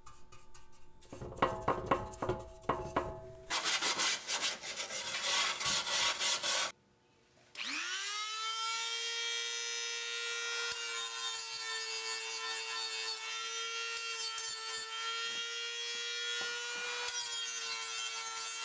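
Scraping and rubbing strokes on the metal toy truck body as paint is stripped off, getting denser after a few seconds. After a short break about seven seconds in, a small high-speed rotary tool spins up with a quick rising whine and then runs at a steady high pitch.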